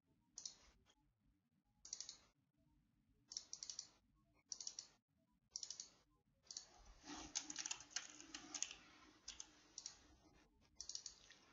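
Faint computer keyboard keystrokes: single short taps about every second or so, then a denser run of typing a little past the middle, and a few more taps near the end.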